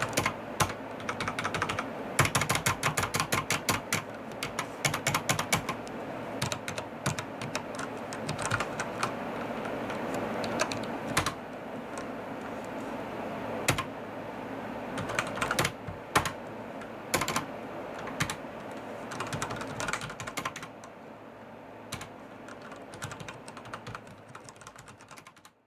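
Logicool G710+ mechanical keyboard with Cherry MX Brown switches being typed on: fast runs of rapid keystrokes with scattered single key strikes between them. The key sound is slightly bass-heavy.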